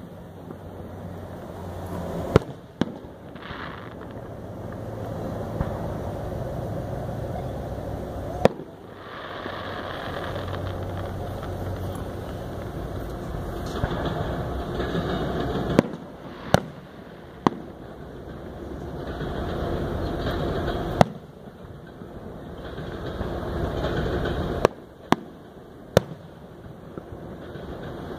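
Aerial fireworks shells bursting: about ten sharp bangs at irregular intervals, some in quick pairs, over a background rumble that rises and falls.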